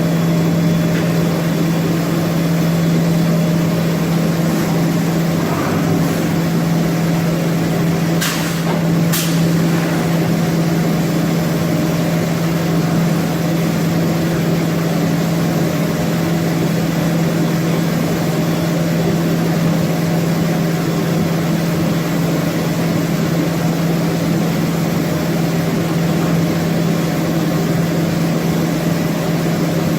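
HOMAG BOF 41/K CNC machining center running with a steady, even hum, with two short clicks about eight and nine seconds in.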